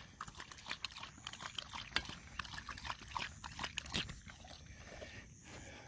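Dog lapping water from a collapsible bowl: quick, irregular wet laps and slops, thinning out near the end.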